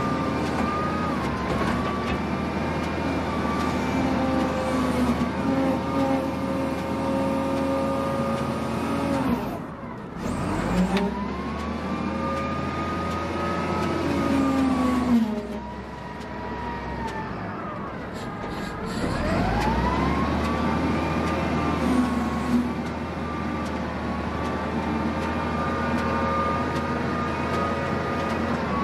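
Diesel engine of heavy earthmoving machinery running, its pitch dropping twice, once about a third of the way in and again past the middle, and climbing back up each time.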